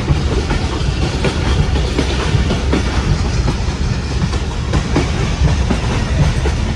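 Passenger train running at speed, heard from inside the coach by an open window: a loud, steady rumble and rattle with irregular clicks and knocks from the wheels and carriage.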